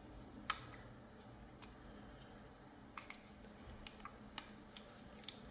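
Faint, scattered clicks and ticks of a fingernail picking at and prying up a glued-on strip on the plastic underside of a Dell MS3320W wireless mouse, with one sharper click about half a second in.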